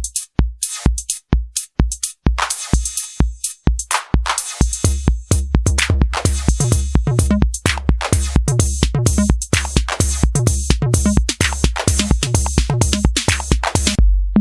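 Roland TR-8S drum machine playing one of its factory preset patterns: an electronic beat of deep booming kick drums with long bass tails under crisp hi-hats and snare or clap hits. The beat is sparse at first and fills out about four seconds in.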